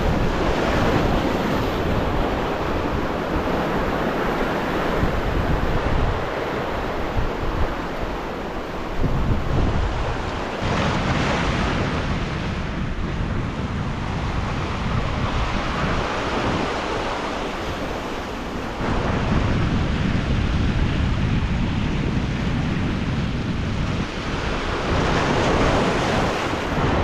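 Ocean surf breaking and washing over a rocky volcanic reef shelf, the rush swelling and easing in surges every few seconds, with wind buffeting the microphone.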